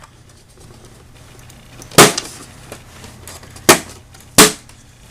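Three sharp knocks of hard parts from the monitor being disassembled, handled on the workbench: one about two seconds in, then two close together near the end.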